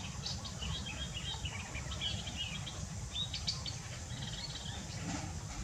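Birds chirping in the background, short scattered high chirps over a steady low hum, with a little rustling from handling a disposable diaper.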